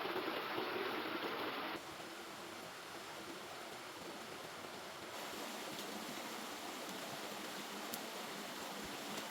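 River water running: a steady rushing noise, changing abruptly about two seconds in and again about halfway through.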